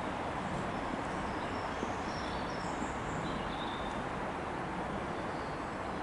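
Steady outdoor background noise with a few faint, high bird chirps in the middle.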